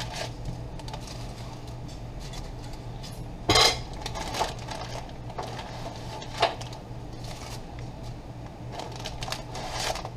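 A few sharp clinks and knocks on a metal cooking pot, the loudest about three and a half seconds in, with lighter ticks between them, over a steady low hum.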